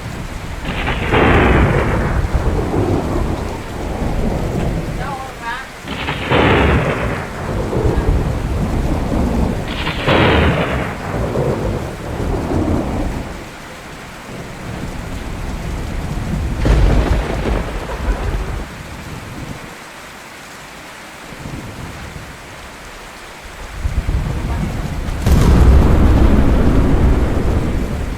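Steady rain with a thunderstorm overhead: three thunderclaps in quick succession, each cracking and rolling off into a rumble, another about halfway through, and the loudest clap near the end, rumbling on.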